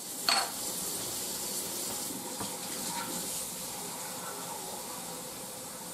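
A slotted serving spoon clatters down onto a plate, then a saucepan of seasoned green beans in hot water hisses steadily on the hot stovetop burner as it begins to simmer.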